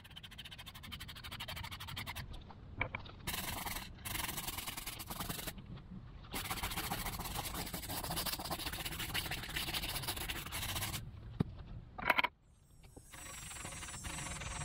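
Brush scrubbing a tire, rapid rubbing strokes, in several short stretches that cut in and out abruptly.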